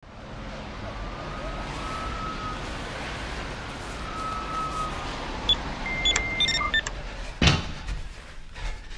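Layered sound-design ambience: a steady low night-city rumble with two faint whistling glides, then a quick run of electronic beeps and chirps, and a heavy thud about two thirds of the way through.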